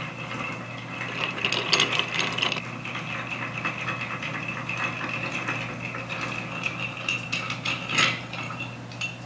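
Long bar spoon stirring ice cubes in a glass mixing glass, a steady rapid clinking and rattling of ice against glass as a cocktail is stirred to chill it. There is a louder clink about eight seconds in.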